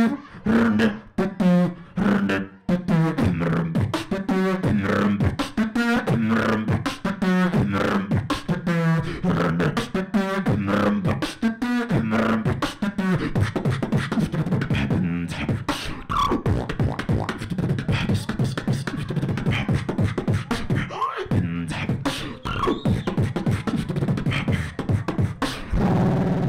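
Human beatboxing into a cupped handheld microphone: a steady beat of sharp mouth-made kicks, snares and clicks over a hummed low bass tone. About halfway through the hum mostly drops out and the beat turns into denser, quicker clicks, and the hum comes back near the end.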